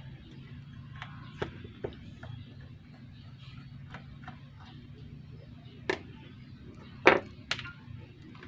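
Scattered small clicks and taps of a screwdriver and the speaker's plastic parts being handled as a holder screw is taken out, a few sharper knocks about six and seven seconds in, over a low steady hum.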